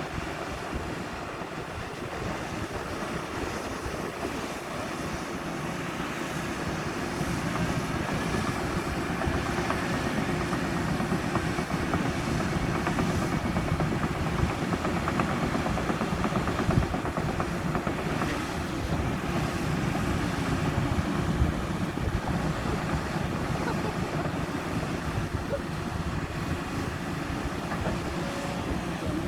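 Excavator's diesel engine running steadily while it digs coal, growing louder several seconds in, with a couple of brief louder knocks.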